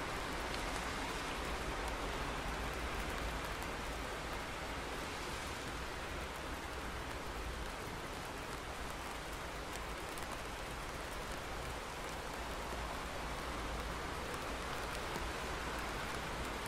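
Steady rain falling, an even hiss of rain without thunderclaps.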